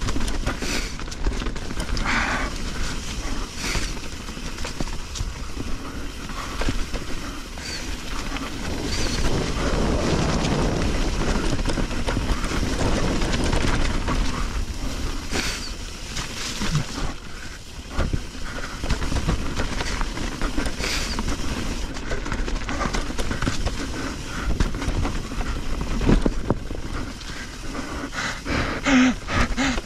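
Mountain bike rolling over a rough dirt trail: tyres running over the ground and the bike clattering and knocking over bumps, with steady wind rumble on the microphone.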